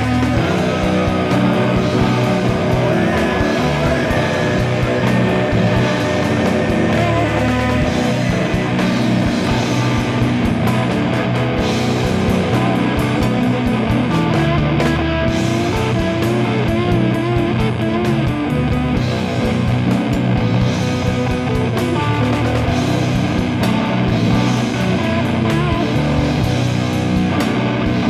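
A doom metal song with electric guitars and drums at a steady, loud level.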